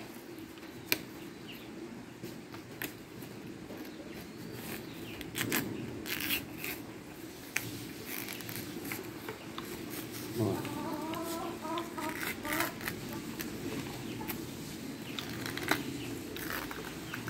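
A chicken clucking in a short run of repeated calls about ten seconds in, with scattered clicks and knocks around it.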